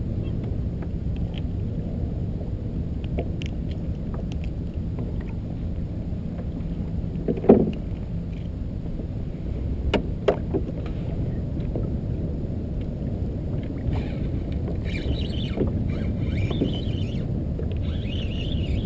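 Small waves lapping and slapping against a Native Ultimate kayak's hull, a steady low rumble. Two sharp knocks on the hull, about seven and ten seconds in.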